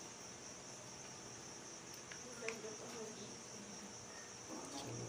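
A cricket chirping in a steady high-pitched trill, with a faint click or two from fingers peeling the shell off a raw shrimp.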